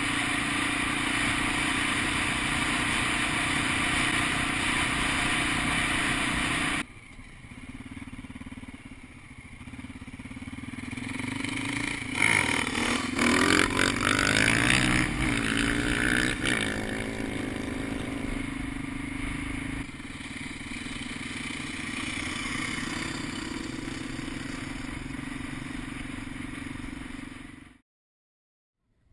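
Trial motorcycle engine running under way, heard from on the bike. Partway through, the revs rise and fall several times as it accelerates, and the sound cuts to silence near the end.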